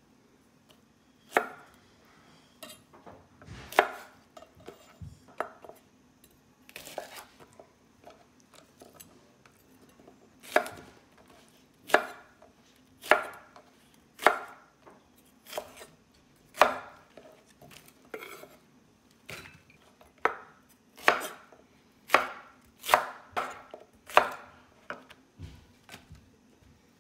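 Chef's knife slicing fresh okra pods on a wooden cutting board: separate chops, each a knock of the blade against the wood, uneven at first and then about one a second.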